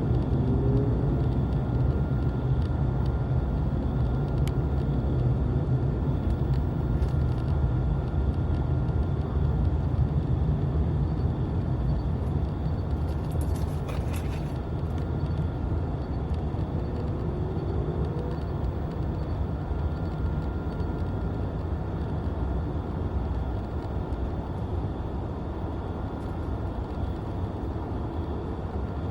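Steady low rumble of road traffic, slowly fading, with a short hiss about halfway through.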